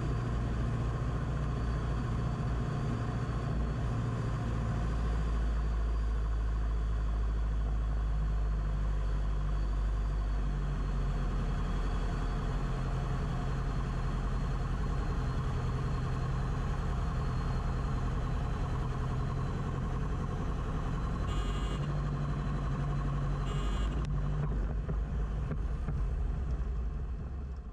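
Beechcraft Musketeer's piston engine running steadily at low power through landing and the rollout, heard from inside the cockpit. A rattling camera mount makes the audio rough. Two short high blips come about two seconds apart near the end.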